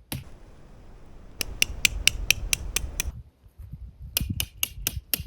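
A tent stake being hammered into the ground: quick runs of sharp strikes, about four a second, in two bursts with a pause of about a second between them.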